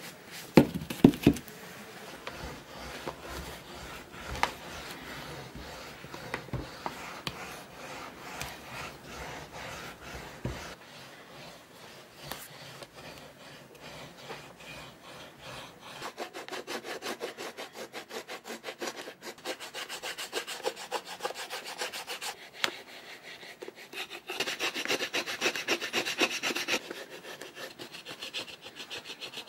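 Deer bone rubbed back and forth over a shell cordovan shoe upper in rapid, even strokes: a dry, scraping rub as the leather is slicked. There are a few sharp knocks about a second in, and the strokes grow louder for a few seconds near the end.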